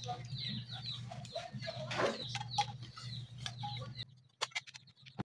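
Chickens clucking in the background over a steady low hum. About four seconds in, the sound drops to near silence, broken by a few sharp clicks.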